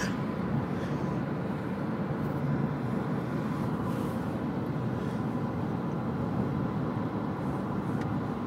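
Steady road and engine noise inside a car cabin at motorway speed.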